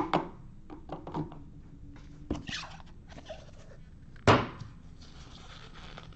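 A trading-card box and a stack of cards being handled and set down on a hard case, with a few light knocks and rustles and one louder thump about four seconds in.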